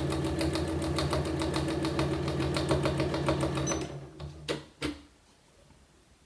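Janome Memory Craft 9900 computerised sewing machine stitching at a steady speed, a hum with a rapid, even run of needle clicks, as it sews bias-tape binding through the quilted layers. The stitching stops about four seconds in, followed by two sharp clicks and then quiet.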